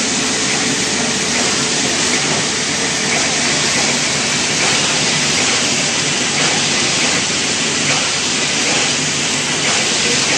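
Automatic through-hole component insertion machine running: a steady, loud, hiss-like machine noise with no clear rhythm.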